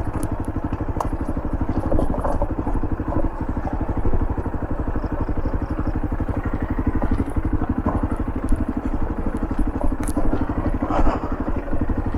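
Motorcycle engine running steadily at low speed, with a few clicks and knocks from the bike jolting over a rough dirt road.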